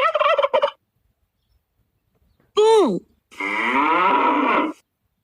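A turkey's gobble ends under a second in. After a pause of nearly two seconds, a short falling sound is followed by a cow mooing once for about a second and a half.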